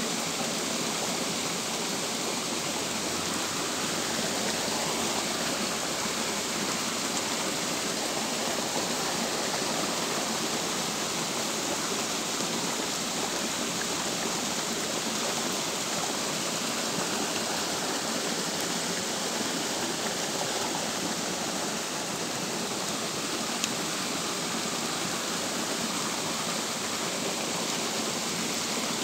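Steady rain falling on a shallow stream, a constant even hiss of drops hitting the water.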